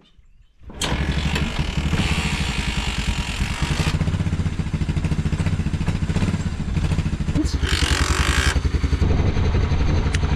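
Honda Big Red 300 ATV's single-cylinder four-stroke engine catching on a kickstart about a second in, then running with an even, steady beat. It is a cold start with no choke after standing about three months, and it runs smoothly.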